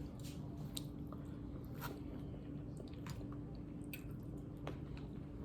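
Someone chewing a bite of baked potato loaded with cheese, sour cream, bacon bits and butter: soft, wet chewing with scattered small mouth clicks. A steady low hum runs underneath.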